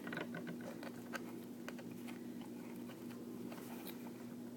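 Light clicks and rustles of a card box being handled and opened, over a steady low hum.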